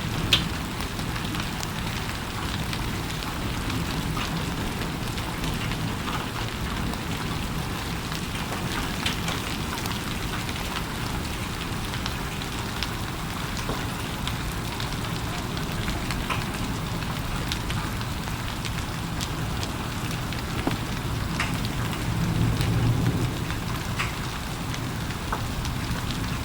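Heavy rain falling steadily, with individual drops ticking sharply here and there. A low rumble swells briefly near the end.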